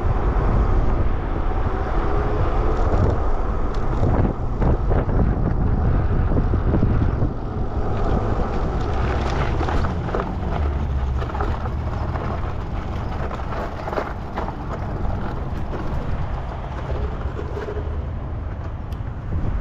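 Wind rushing over the microphone and tyre noise from a Super73 RX electric bike riding along pavement; about seven seconds in it eases as the bike slows onto a dirt lot, where the tyres crunch and crackle over dirt and gravel.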